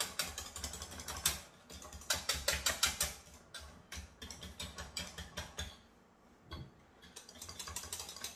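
Whisk beating pastry cream in a saucepan on the heat: quick clicking strokes against the pan, about five a second, pausing briefly near two seconds in and again around six seconds. The cream is thickening as it cooks.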